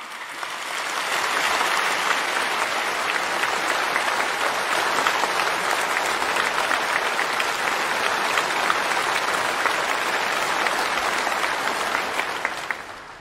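A large seated audience applauding steadily, swelling up within the first second or so and dying away near the end.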